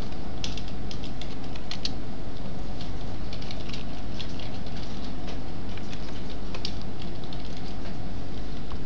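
Computer keyboard keystrokes and mouse clicks in short scattered runs during data entry, over a steady low background hum.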